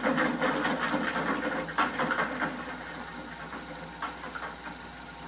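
Soundtrack of an old 16mm film playing through the projector's speaker: a rough, low rumbling noise with no dialogue, easing off somewhat over the last couple of seconds.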